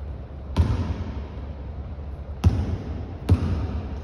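Basketball bouncing on a hardwood gym floor: three thuds at uneven intervals, each echoing through the large hall.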